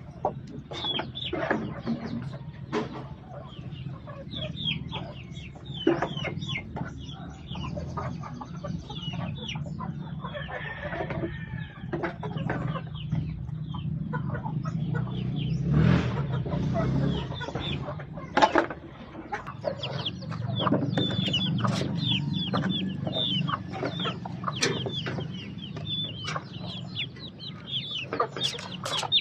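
A flock of chickens clucking and calling: many short, high calls, one after another, over a steady low hum.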